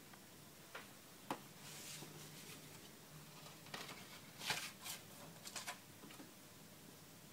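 A 7-inch vinyl record being slid out of its cardboard picture sleeve and plastic inner sleeve: a few soft clicks, then short rustles and scrapes of paper and plastic, bunched together just past the middle.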